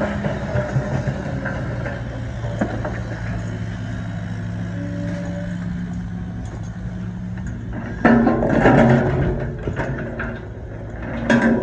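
Heavy construction equipment's engine running steadily. About eight seconds in, and again near the end, louder noisy, clattering stretches come in over it.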